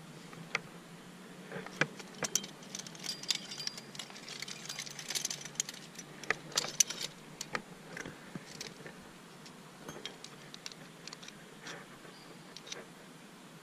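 Metal climbing gear on a trad lead climber's harness, carabiners and protection on the rack, clinking and jingling in a run of sharp metallic clicks, busiest over the first half.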